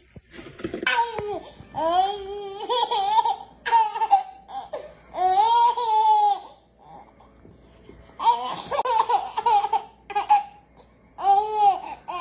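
A baby laughing in about six high-pitched peals, each a second or so long, with short breaks between them.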